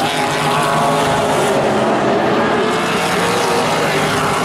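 Several vintage modified stock car engines racing around a short oval together, a loud, steady mix of engine notes rising and falling as the cars pass.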